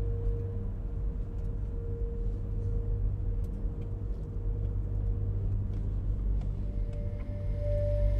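Low, steady rumble of a car heard from inside the cabin, with a soft held musical tone over it; a higher held tone comes in about seven seconds in.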